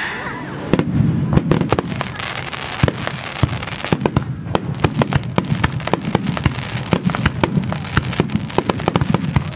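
Aerial fireworks shells bursting in a rapid barrage: a dense, irregular run of sharp bangs, several a second, with the small crackling bursts of crackle stars among them.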